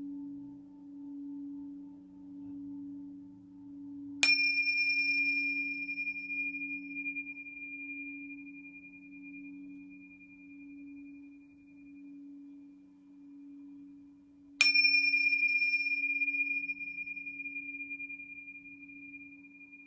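Tibetan singing bowls: a low bowl hums on with a slow, even wobble in its loudness, and a high, clear bell tone is struck twice, about ten seconds apart, each strike ringing out and fading slowly.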